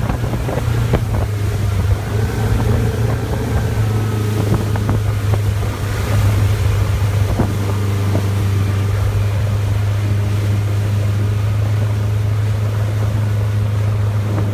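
Motorboat engine running steadily at towing speed, a constant low drone, over the rush of the churning wake and wind on the microphone, with a few brief knocks.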